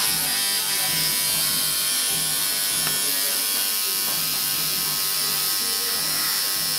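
Electric tattoo machine buzzing steadily as the needle works ink into skin.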